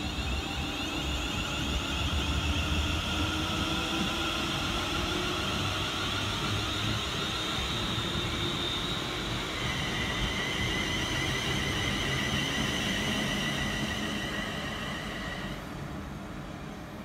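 London Northwestern Railway Class 350 Desiro electric multiple unit pulling away: a high traction-motor whine in several tones rises slightly in pitch over a steady wheel-on-rail rumble. The whine changes note about ten seconds in, cuts off near the end, and the train's sound fades as it draws off.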